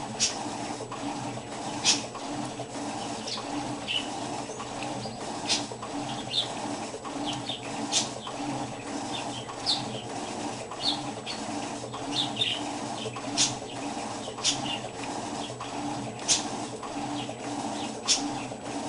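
Electrolux washing machine running with a steady hum, sharp clicks every second or two, and short high chirps over it.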